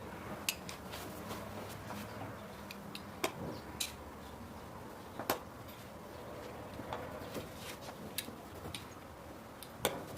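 Scattered light clicks and taps of kitchen handling, such as utensils and dishes being set down and moved on a worktop, over a faint steady low hum.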